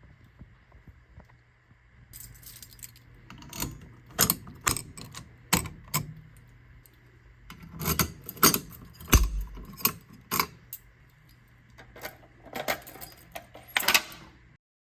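A series of sharp metallic clicks and jingling rattles in irregular clusters, starting about two seconds in and cutting off abruptly near the end.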